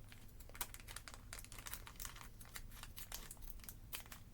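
Faint crinkling and crackling of a foil Pokémon booster pack wrapper being handled, in many small irregular crackles.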